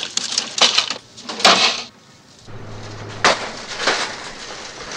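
A quick run of knocks and rustling, then a short lull and a steady outdoor hum with one sharp knock about a second after it begins.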